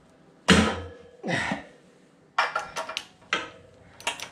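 Metal hand tools clinking and knocking while the spark plug is taken out of the generator's engine. There is a heavy knock about half a second in, another a second later, then a quick run of clicks, and sharp clicks near the end.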